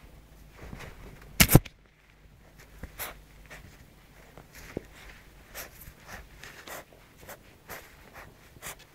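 A puppy scrabbling and rubbing against the bedding and the camera: irregular scratchy rustles and brushing of fur close to the microphone, with two loud knocks close together about a second and a half in.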